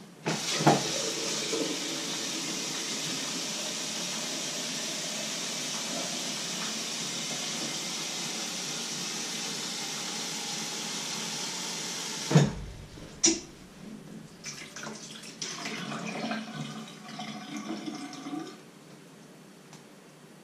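Tap water running steadily into a small enamel kettle in a steel sink for about twelve seconds, then stopping with a sharp knock. Scattered knocks and light clatter follow as the kettle is handled.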